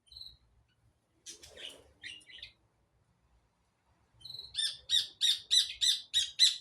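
A songbird calling: a short high note, then a brief scratchy chatter, then a loud run of about eight rapid repeated notes, about three a second.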